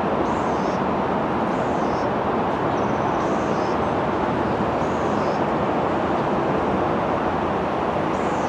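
Steady, even rumble of distant vehicle noise with no horn or engine note in it. A small bird chirps briefly every second or so.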